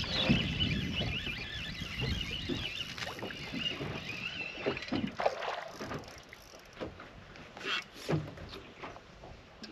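Water slapping against a bass boat's hull with wind on the microphone, and a hooked bass splashing at the surface just after the start. A few sharp splashes and knocks come in the second half.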